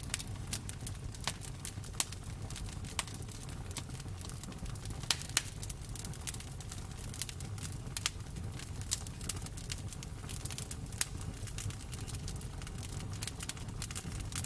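Campfire burning: a steady low rumble of the flames with irregular crackles and sharp pops of burning wood, a few louder snaps about 2, 5 and 11 seconds in.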